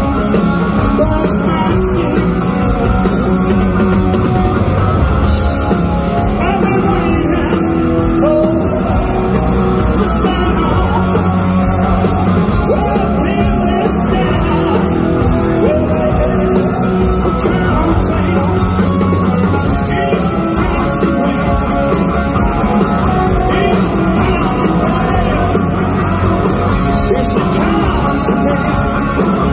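Rock band playing live, with a male singer singing over bass guitar and the band, heard loud and steady through a phone's microphone in an arena.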